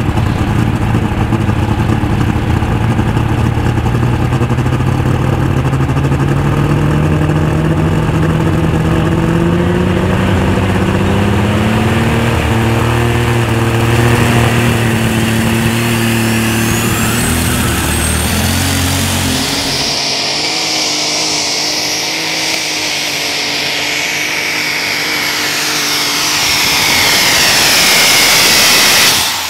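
Unlimited super stock pulling tractor's engine at full throttle down the track, its pitch climbing slowly and steadily. About 20 s in the deep engine note drops away, leaving a high whine that falls in pitch near the end.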